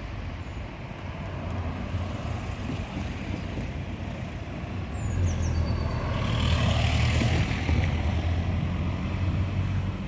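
Road traffic running past, with a vehicle's rumble swelling louder about six seconds in and easing off toward the end.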